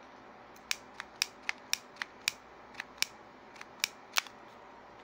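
Tecboss butane torch lighter's piezo igniter clicking about a dozen times at an irregular pace without lighting, its gas flow turned down too low to catch.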